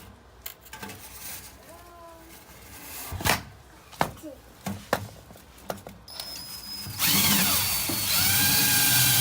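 A few handling knocks and clicks, then about seven seconds in a power drill starts and runs steadily with a motor whine, spinning a dryer-vent cleaning brush on its extension rod inside the vent duct.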